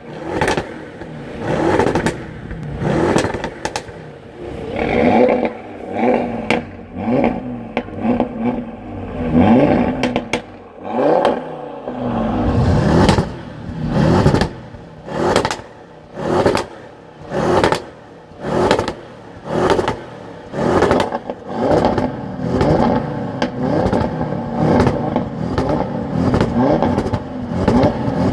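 Audi RS car engine being revved over and over, with sharp exhaust pops and crackles as the revs drop. Early on the revs rise and fall in longer sweeps; later they come as quick blips about once a second, each followed by a burst of pops.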